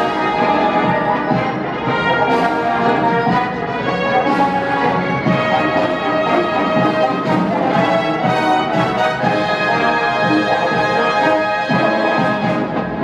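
High school wind band playing, brass to the fore, with regular percussion strikes.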